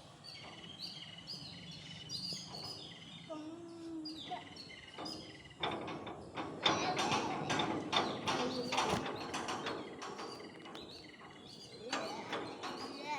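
Small birds chirping in quick series of short falling notes, followed by a dense stretch of sharp clicks and calls through the middle, and more calls near the end.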